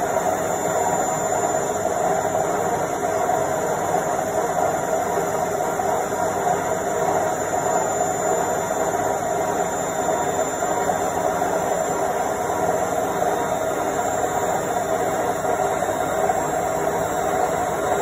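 Indesit front-loading washing machine on its spin cycle, the drum turning at speed with a steady whirring drone and a faint, steady high-pitched whine above it.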